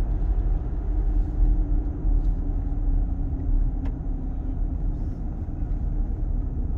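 Car cabin road noise while driving: a steady low rumble of tyres and engine, with a faint steady hum above it and a single light tick about four seconds in.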